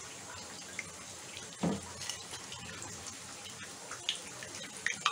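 Fish koftas deep-frying in hot oil in a karai, a steady, fairly quiet sizzle of light bubbling, the sign that the koftas are cooked. A metal slotted spoon knocks against the pan once about a second and a half in, with a few lighter clicks after.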